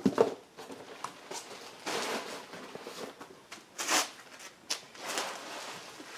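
Handling noise from an outboard lower unit and its water-pump parts being worked on a workbench: irregular scrapes, rustles and sharp clicks, the loudest just after the start and about four seconds in.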